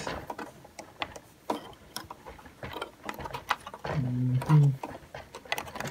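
Plastic Lego pieces clicking and rattling as a small pull-out futon built from bricks is pushed and tugged by hand, in scattered short clicks.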